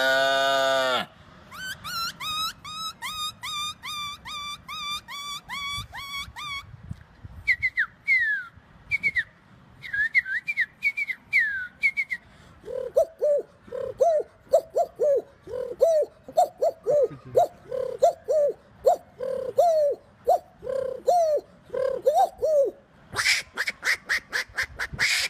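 A run of different animal and bird calls, one type after another: a lowing call at the start, then quick repeated chirps about four a second, a few falling whistles, a long series of lower repeated calls, and fast rapid calls near the end.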